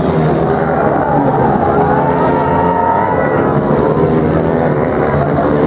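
150cc dirt bike engines running hard as several bikes ride through the course. The revs rise and fall, with one engine climbing in pitch for about a second and dropping back about halfway through.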